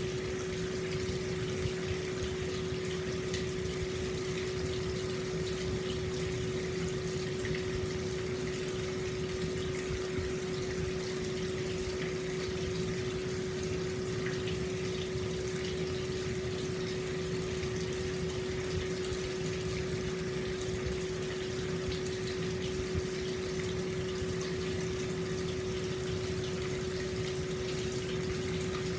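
Hot spring water flowing steadily from its inlet into an open-air bath, a continuous splashing rush with a steady humming tone underneath.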